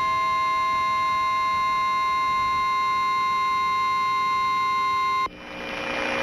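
Emergency Alert System alert tone: one steady, loud electronic tone that cuts off suddenly about five seconds in. A hiss of broadcast static follows and grows louder.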